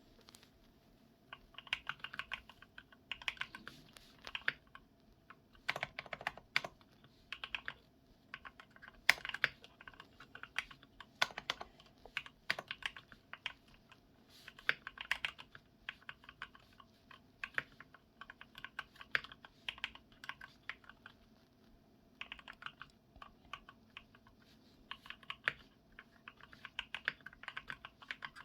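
Typing on a mechanical keyboard with Gateron Milky Yellow linear switches: bursts of rapid keystrokes lasting a second or so, separated by short pauses, with a few louder single strokes among them.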